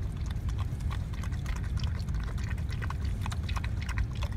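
Golden retriever lapping warm corn soup from a small hand-held bowl: quick, irregular wet lapping clicks over a steady low rumble.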